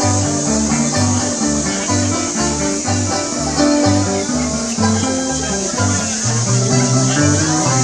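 String band with banjos and a guitar playing an instrumental break, plucked and strummed over low bass notes that change about twice a second.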